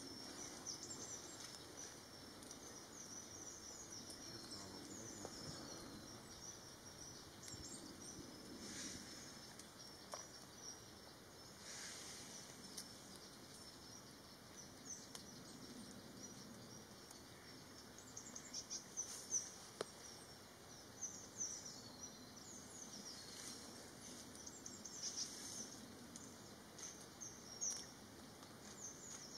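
Faint chorus of small songbirds: many short, high chirps and trills, busier and louder in the second half, over a soft low background hiss.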